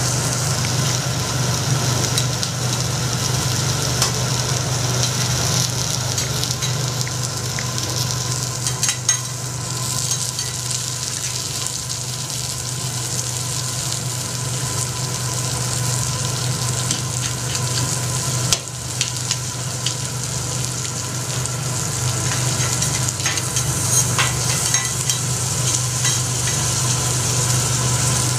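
Lobster meat and asparagus sizzling on a hot teppanyaki griddle: a steady frying hiss over a low steady hum, with a few sharp clicks.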